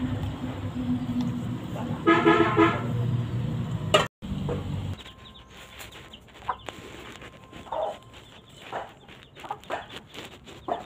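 Oil sizzling around dough balls frying in a pan, with one loud, short pitched call about two seconds in. The sound cuts out just after four seconds and goes quieter, with scattered clicks and a few short calls.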